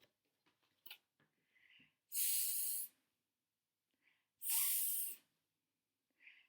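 A woman's voice hissing a long "sss", the /s/ phoneme, twice, each lasting under a second.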